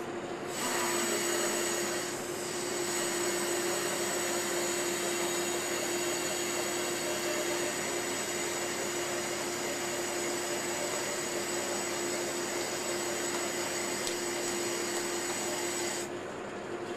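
Ship's deck winch motor running with a steady whine as it hoists a CTD water-sampling rosette off the deck. It starts about half a second in and cuts off near the end.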